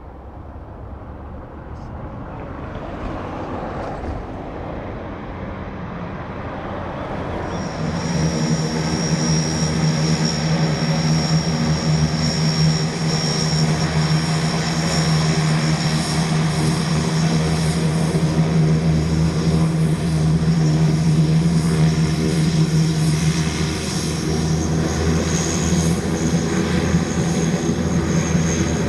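Antonov An-26B's two Ivchenko AI-24 turboprop engines running, a steady propeller drone with a high turbine whine. It grows louder over the first seven or eight seconds as the aircraft comes closer, then holds steady.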